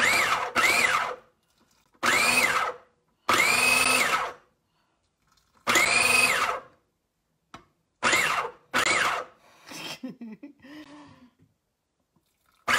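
Food processor pulsed in seven short bursts, each motor whine rising as it spins up and dropping as it stops, working pie crust dough while cold water is drizzled in.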